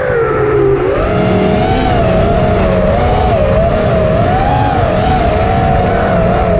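Racing drone's motors and propellers whining, the pitch wavering up and down as the throttle changes, over a steady low rumble.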